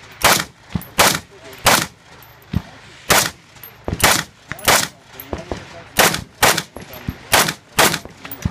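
About ten semi-automatic rifle shots, spaced roughly half a second to a second apart, with a longer pause about two seconds in. Fainter cracks come between them.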